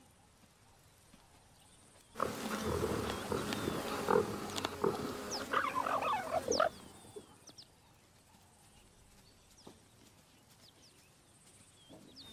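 Cheetahs feeding on a fresh kill, growling and snarling as they tear at the meat, for about four and a half seconds starting about two seconds in. Faint bird chirps sound in the quiet before and after.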